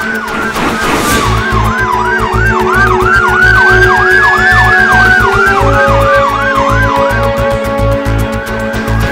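Siren sound over music with a heavy low beat: a slow wail rising and falling together with a fast yelp of about three cycles a second. The beat comes in about a second in.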